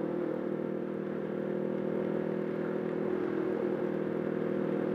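Kawasaki Ninja 650R parallel-twin engine running at steady revs under way, with a hiss of wet road and wind underneath.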